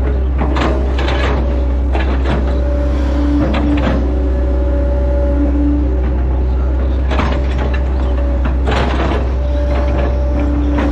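Hitachi Zaxis 110 excavator heard from the cab: the diesel engine drones steadily under load, a hydraulic whine comes and goes as the boom and bucket move, and the bucket gives several clanks and scrapes as it works the mud bank.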